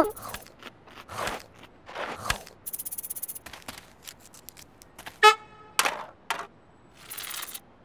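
Cartoon sound effects: a run of quick swishes and clatters, a brief buzzing rattle about three seconds in, and a short horn-like toot a little after five seconds, the loudest sound.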